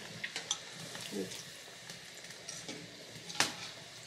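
Breaded pumpkin croquettes deep-frying in hot oil: a steady sizzle. A few light clicks come from the wire skimmer against the pot, the sharpest about three and a half seconds in.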